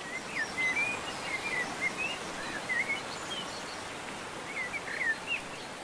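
Birds twittering in quick, short chirps over a steady background hiss. The calls pause for about a second, then return near the end.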